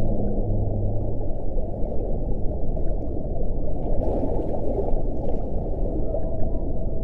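Whale sound effect: a dense, low underwater rumble, with a low steady hum that stops about a second in and a faint, thin higher tone near the end.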